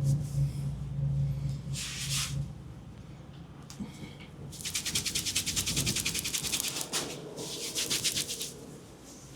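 Hands rubbing briskly over hair and scalp in a head massage: a dry, scratchy rustle, with one short rub about two seconds in and a fast rhythmic run of about eight strokes a second through the middle. A low steady hum is heard during the first two seconds.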